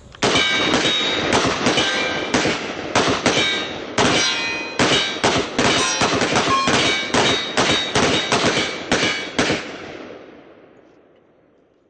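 Rapid pistol fire from Glock handguns at steel targets, roughly three shots a second, each shot followed by the ring of steel plates being hit. The firing stops about nine and a half seconds in and the sound fades out.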